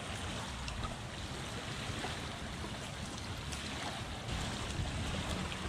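Steady wash of small waves at the shoreline, with water trickling and dripping from a freshly hauled nylon cast net onto wet sand.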